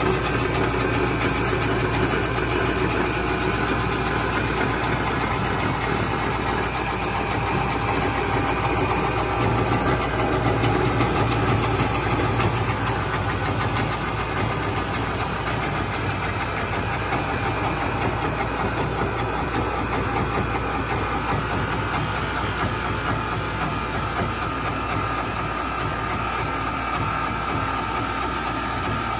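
Duplicating lathe running steadily, its ring cutter head shaping a spinning wooden baseball bat blank. The noise is dense and even, easing a little about halfway through.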